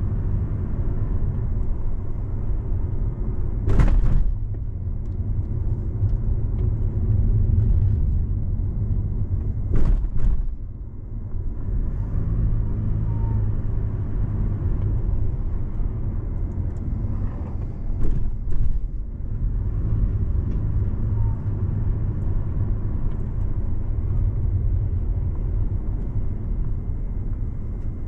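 A car being driven: a steady low rumble of engine and road noise, with three short, sharp louder moments about four, ten and eighteen seconds in.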